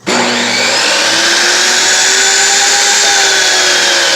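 Table saw switched on: its motor and blade come up to speed within the first moments and then run steadily and loudly, free-spinning with no cut yet, with a slight rising whine.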